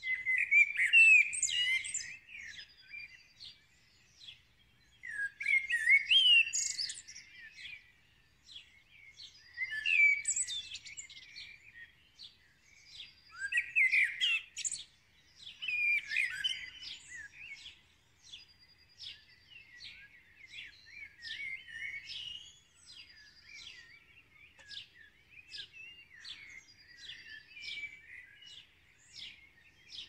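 Songbird nestlings begging: loud bursts of rapid, squeaky chirps every few seconds, then a run of softer, evenly spaced chirps at about two a second.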